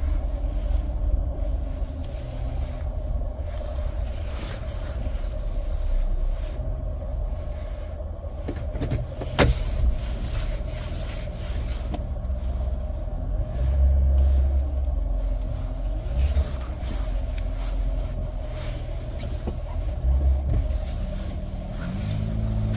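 Mercury Grand Marquis V8 and road noise heard from inside the cabin while driving slowly: a steady low rumble that swells twice, with a constant hum above it. A single sharp click comes about nine seconds in.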